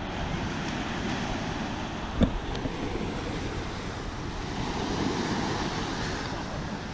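Ocean surf breaking and washing up the sand, with wind rushing on the microphone. A single short knock about two seconds in.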